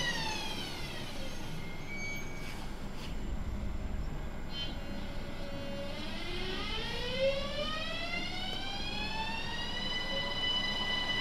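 Siemens Desiro ML electric multiple unit pulling away, its traction inverter whine gliding down in pitch over the first couple of seconds, then climbing again from about six seconds in to a steady high tone, over a low running rumble.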